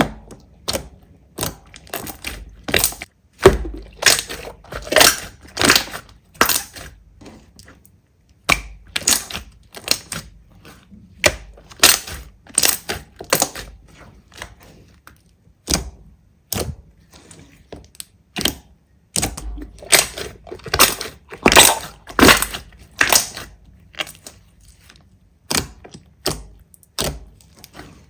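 Slime being pressed and squished by hand, giving loud crackling pops in irregular clusters, roughly one or two a second.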